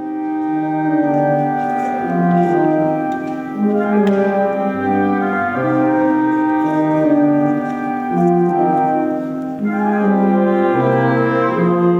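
Slow, solemn music of held chords in several parts, changing about once a second, without drums.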